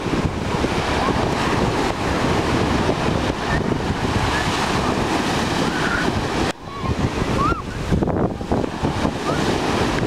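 Sea surf breaking and washing onto a sandy beach, with wind buffeting the microphone. A brief dip about six and a half seconds in, and a few faint distant voices of people in the water.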